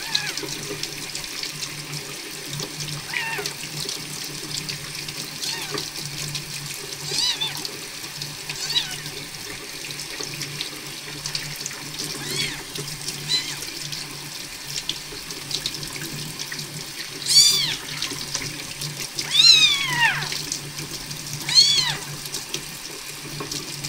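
Tap water running steadily into a sink while a young kitten is rinsed under it, mewing: faint cries at first, then three loud, high mews in the last few seconds.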